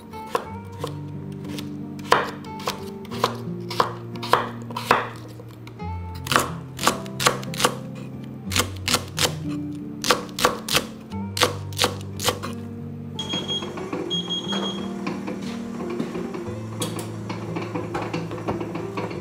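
Chef's knife slicing daikon radish and then green onion on a wooden cutting board: an irregular run of sharp chops, about two a second, that stops about two-thirds of the way through, over soft background music.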